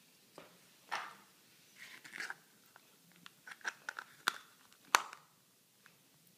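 Hard plastic Apple EarPods case handled in the hands: short crinkly plastic rustles and a run of small clicks as the clear lid is pressed onto the case, with one sharp snap about five seconds in.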